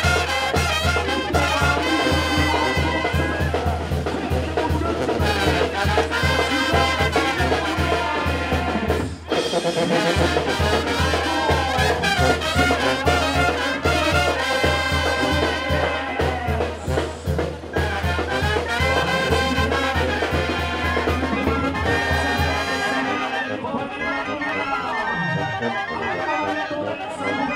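Mexican banda music: trumpets and trombones over a steady pulsing low beat, which drops out near the end.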